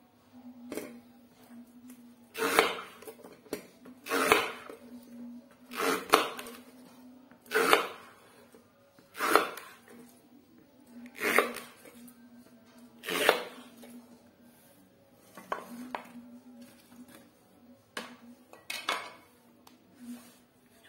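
A kitchen knife chopping through taro stalks and knocking on a wooden cutting board that rests on a steel bowl. It makes one sharp chop about every two seconds, with the strokes lighter and quicker near the end.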